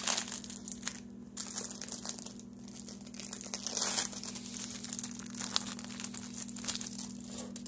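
Plastic food packaging crinkling and crackling in irregular bursts as it is handled and a pack of sliced cheese is opened, over a steady low hum.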